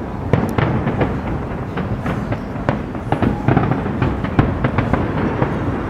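Fireworks display going off: many bangs and crackles in quick, irregular succession over a continuous low rumble.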